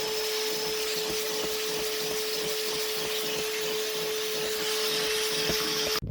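Vacuum cleaner motor running steadily with a constant whine, cutting off suddenly near the end.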